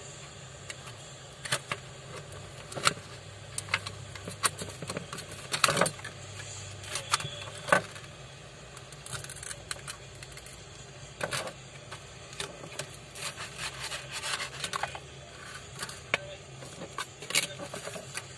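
Scattered clicks, taps and scrapes as the glued back cover of a Vivo V21 phone is peeled off its frame and the phone is handled. A steady low hum runs underneath.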